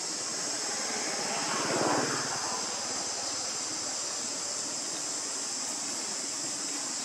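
Steady, high-pitched insect drone, with a brief broad swell of noise about two seconds in that rises and fades.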